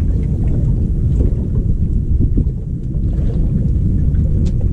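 Wind buffeting the microphone on an open boat, a loud, steady low rumble with a few faint knocks.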